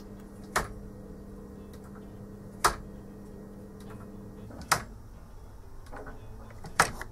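Scrap-built pendulum clock's clothes-peg escapement ticking: a sharp tick about every two seconds as the escapement lets the peg wheel advance one step, four ticks in all.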